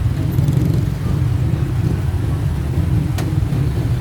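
Steady low rumble of a road vehicle on the move, with one sharp click about three seconds in.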